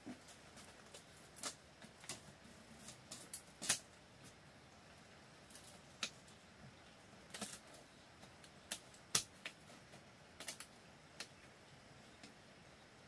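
Irregular light taps and clicks, about twenty spread unevenly over a quiet background, the loudest a little under four seconds in and again about nine seconds in.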